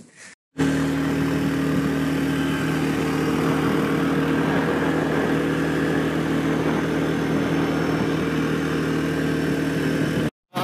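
ATV (quad bike) engine running at a steady speed while riding along a paved road: a steady, even engine hum with a rushing noise over it. It starts abruptly about half a second in and cuts off sharply near the end.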